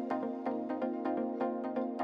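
Background music with a steady beat of light ticks over held chords.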